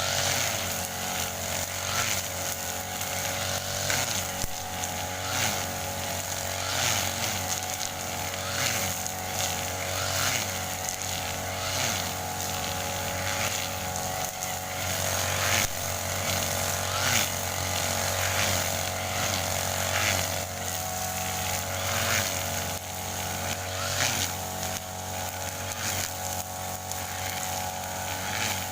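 Grass cutter (brush cutter) running steadily while cutting grass, with a short swish about every one to two seconds as it sweeps through.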